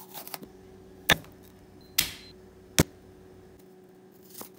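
Chef's knife cutting vegetables on a wooden cutting board: three sharp knocks about a second apart as the blade goes through bell pepper and onion and hits the board, with a few fainter taps.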